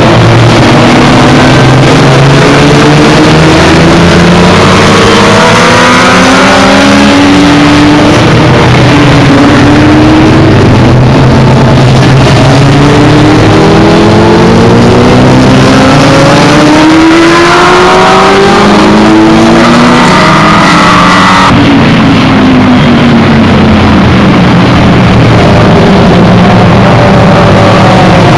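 Several sports motorcycle engines revving as a group of bikes rides through a bend. Their overlapping pitches fall and rise again and again as they shift gears and accelerate away, and the sound is loud throughout.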